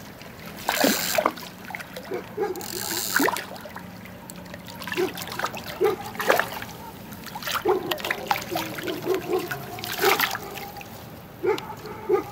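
A hooked nase splashing and thrashing at the river's surface as it is played in on a float rod: irregular small splashes and trickling water, with sharper splashes about a second in, around three and six seconds, and again near ten seconds.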